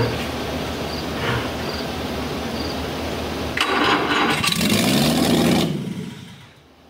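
Jaguar 2.4-litre twin-cam inline-six running on an engine stand on its first start after a top-end rebuild, run only briefly because it shows no oil pressure. About three and a half seconds in it gets louder and revs up with a rising pitch for about two seconds. It is then shut off and runs down to quiet near the end.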